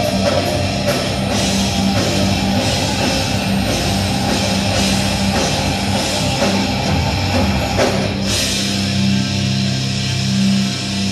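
Live rock band playing loud, with electric guitars and a drum kit. A crash comes about eight seconds in, after which the drum strokes thin out and held notes ring on.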